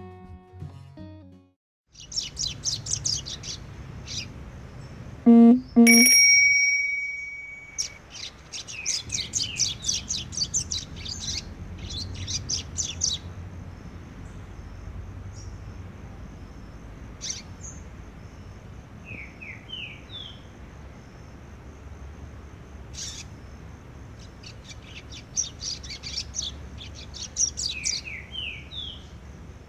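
Guitar music ends in the first second or two. Then a caged male double-collared seedeater (coleiro) sings repeated phrases of rapid, high twittering notes with a few short slurred chirps: a song still being polished in training. A loud ringing tone about five seconds in is the loudest sound.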